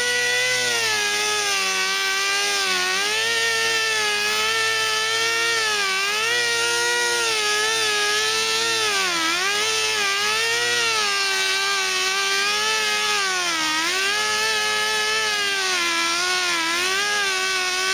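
Angle grinder running steadily, its whine dipping in pitch again and again as the spinning disc is pressed into the truck's rocker panel area, grinding off paint and rust to bare metal for welding.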